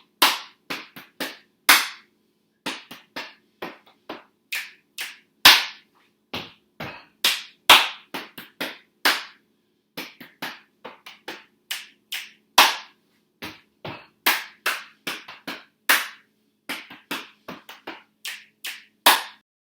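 Body percussion played as a rhythmic pattern: stomps, hand claps, thigh slaps, belly pats and finger snaps. It is the stomp-stomp-clap-clap, thigh-thigh-thigh-clap, thigh-thigh-thigh-belly-belly-belly-snap-snap-clap canon pattern, repeated, and the hits stop just before the end.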